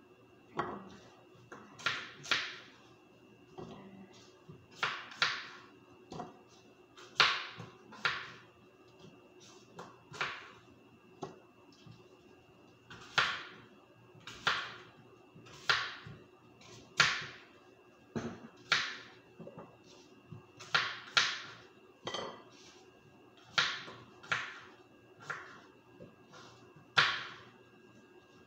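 Knife slicing through a crisp apple: a sharp crunching stroke every one to two seconds, some strokes in quick pairs.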